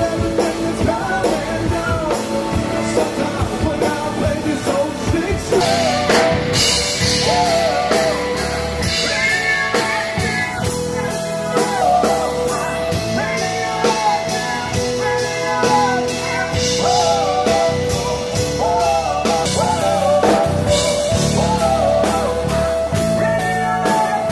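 Live rock band playing: electric guitar, drum kit and a male lead vocal.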